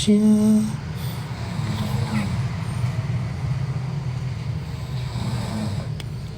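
A person sings and holds the last word of a line, stopping within the first second. A steady low rumble runs underneath and continues alone afterwards.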